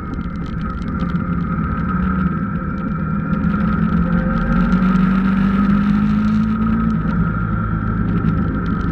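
Motorcycle engine running steadily on a winding mountain road. The engine note rises a little about halfway through, then eases off about two seconds before the end.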